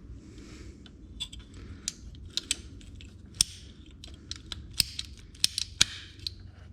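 An old pair of PVC pipe cutters clicking and snapping irregularly as they are squeezed through a thick 4-gauge copper battery cable, with about a dozen sharp clicks of uneven loudness.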